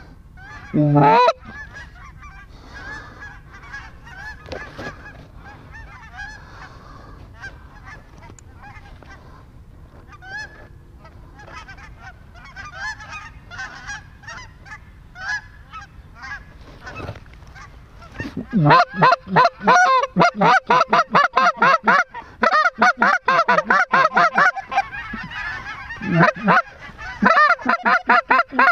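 Hand-blown goose calls clucking and honking over a flock of geese calling overhead. One loud call comes about a second in, then fainter scattered honks, and from about two-thirds of the way through a loud, rapid run of clucks, many a second.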